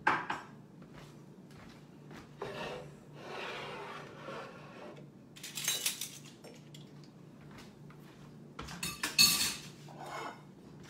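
Kitchenware being shifted around on a counter: bowls, spoons and a cutting board set down and moved, with spoons clinking against the dishes. There are several separate clatters, the loudest near the end.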